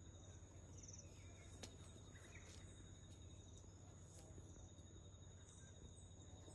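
Faint outdoor ambience of insects calling on steady high, thin tones, with a few short chirps and a low steady hum underneath.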